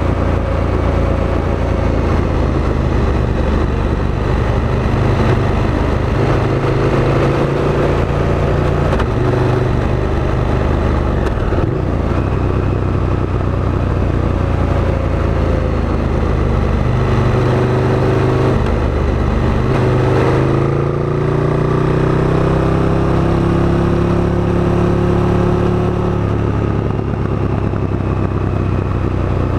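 KTM 1290 Super Duke GT's V-twin engine pulling the motorcycle along, its pitch shifting in steps as the revs change. The revs climb over several seconds about two-thirds of the way through.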